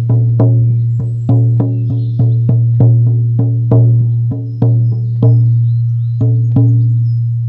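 16-inch buffalo-skin frame drum on an ash frame, struck with a firm beater in a steady beat of about three strokes a second, its deep tone ringing on between strokes. The beat pauses briefly about two thirds of the way through, then resumes with a few more strokes.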